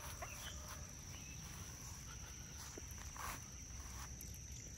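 Faint outdoor background of insects keeping up a steady high-pitched trill, with a few light rustles or footsteps.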